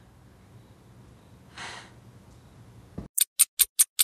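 Quiet room tone with one short breathy exhale about a second and a half in, then, about three seconds in, a sharp even ticking starts, about five ticks a second with silence between them.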